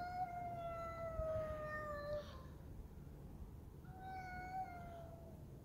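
Stray cat giving two long, drawn-out meows: the first lasts over two seconds and slowly falls in pitch, the second, shorter one comes about four seconds in.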